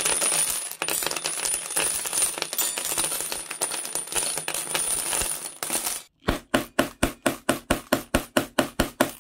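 Steel nails clattering as they pour onto a wooden workbench in a dense shower of metallic clinks for about six seconds. After a short gap, a hammer drives a nail into a block of wood with quick, even blows, about four a second.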